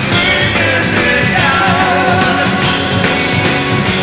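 Three-piece hard rock band playing live: electric guitar, bass and drums, with a wavering melody line over a steady beat.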